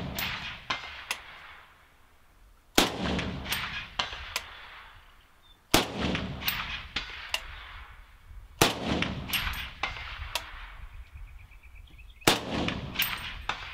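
Zastava M77 AK-pattern rifle in .308 Winchester, fitted with a suppressor, firing four single shots about three seconds apart, each followed by a rolling echo.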